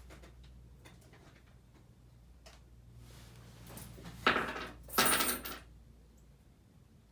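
1985 Hunter Original ceiling fan's oil-bath motor running on low speed with a faint, steady low hum; it is quiet. About four seconds in, two brief loud clattering rattles, half a second apart, stand out over it.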